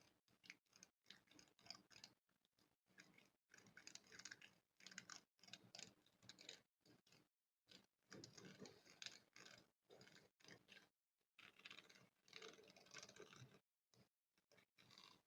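A spoon scratching and rubbing directly on a microphone, in quiet, irregular scratchy strokes broken by brief dead-silent gaps.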